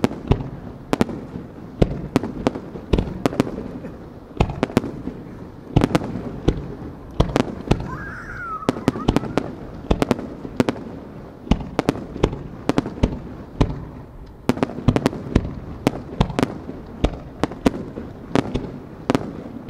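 Aerial fireworks display: sharp bangs and crackles from bursting shells, several a second in an uneven run, over a continuous low rumble.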